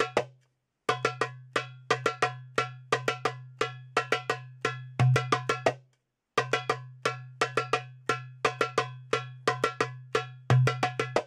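Metal-bodied Gawharet El Fan darbuka played in fast repeated drill phrases of sharp tek and ka finger strokes over a ringing low tone. Each phrase ends on a heavier doum stroke, with a brief silence before the next, about a second in and again near six seconds.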